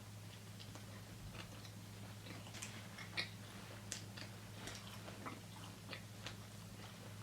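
Close-miked chewing of a cheesesteak sandwich: soft wet mouth clicks and smacks at irregular intervals, one sharper about three seconds in. A steady low hum runs underneath.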